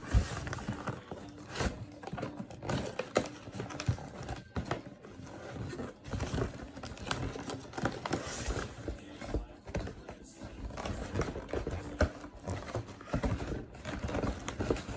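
Cardboard shoebox being handled and opened: irregular knocks and scrapes of the box and lid, with paper rustling.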